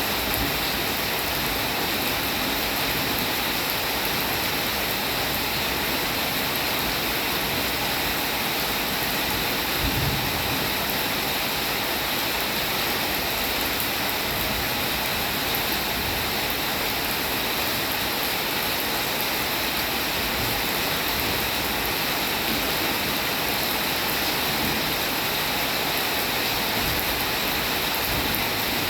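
Steady rain falling, a continuous even hiss of drops. About ten seconds in, there is a single brief low thump.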